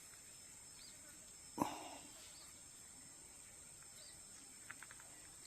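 Steady high-pitched insect chirring in the background, with one short knock about a second and a half in and a few faint ticks near the end.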